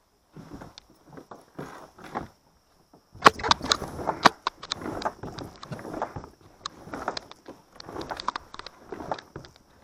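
Kayak being paddled: strokes come about once a second with sharp clicks and knocks against the hull, a dense cluster of knocks about three seconds in. A steady high insect buzz runs underneath.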